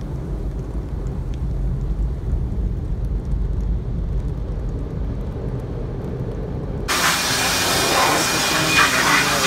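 Automatic car wash machinery heard from inside the car's cabin: a steady low rumble while soap foam is sprayed over the windshield. About seven seconds in it cuts sharply to a loud, steady hiss.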